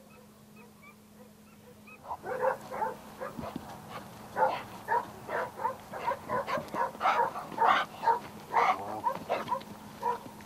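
A pointer dog on a leash yelping and barking in quick, irregular succession, starting about two seconds in.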